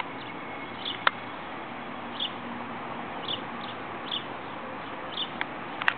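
Short high chirps repeating about once a second, like a small bird calling, over a steady hiss of outdoor background noise, with a couple of sharp clicks.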